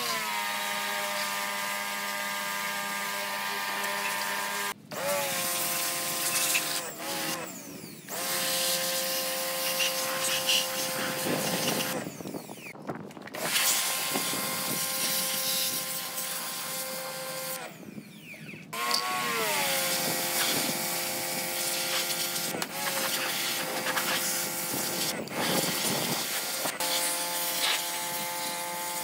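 Handheld electric power tool whining in several long runs with short stops between them. At the start of each run the pitch drops, then holds steady.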